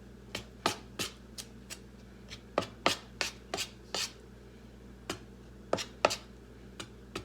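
A spoon knocking and scraping against a steel mixing bowl while it stirs flour into water for dough: sharp, irregular taps, about two or three a second.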